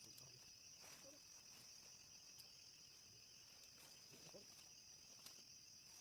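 Faint, steady high-pitched chorus of night insects in the forest, with a few faint clicks.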